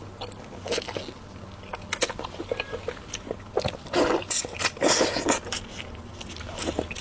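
Close-up eating sounds: a person biting and chewing food, a run of irregular short clicks and bites, loudest between about four and five and a half seconds in.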